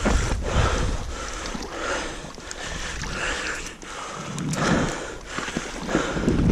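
Wind buffeting the microphone in a snowstorm, a rough rumbling noise that rises and falls.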